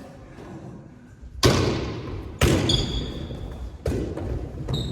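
Three heavy thuds, about a second or so apart, each ringing out in a large echoing hall, with brief high squeaks after the second.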